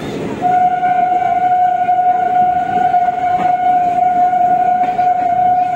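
Train horn sounding one long steady blast, starting about half a second in and held to the end, over the rumble of freight wagons passing alongside on the next track.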